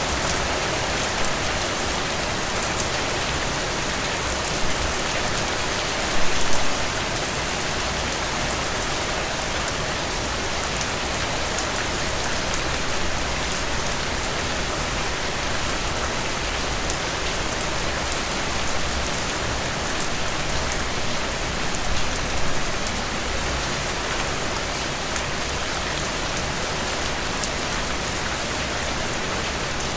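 Strong rain falling steadily, with individual drips ticking sharply close by; two brief louder swells of drops break the even hiss.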